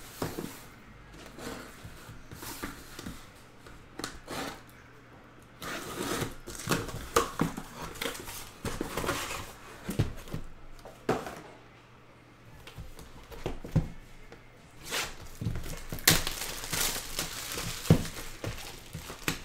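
Cardboard card boxes being handled and unwrapped: packing tape and plastic shrink wrap tearing and crinkling, with a few dull thunks as boxes are set down on the table.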